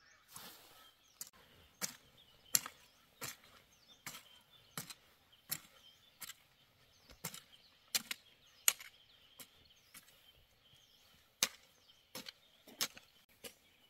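Steady series of sharp chopping strikes, roughly one every two-thirds of a second, some much louder than others.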